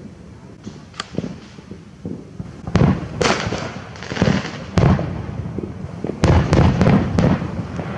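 Fireworks going off: a run of sharp bangs and pops in quick succession, heaviest about three seconds in and again from about six seconds in.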